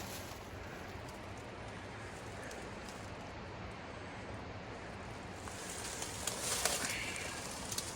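A person moving over rocks and leaf litter: a steady low hiss, then from about five and a half seconds in a couple of seconds of rustling and scraping with a few sharp clicks.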